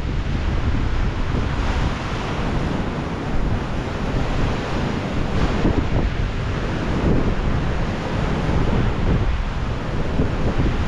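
Ocean surf washing in over rocks and breaking, swelling and easing, with wind buffeting the microphone in a steady low rumble.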